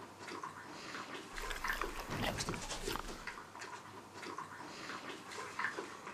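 A small pony moving about on a straw-covered floor, with rustling and soft animal noises in short, irregular bursts.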